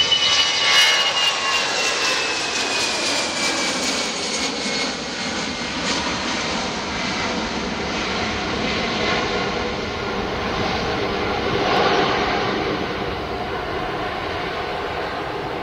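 Airbus A320-family twin-jet airliner climbing out after takeoff: a steady jet engine roar, with a whining tone that falls in pitch over the first few seconds as the aircraft passes.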